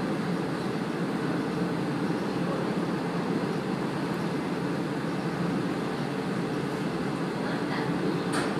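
Steady running noise of a KiHa 48 diesel railcar under way, heard from inside the car: an even rumble of engine and wheels on rail, with a faint click near the end.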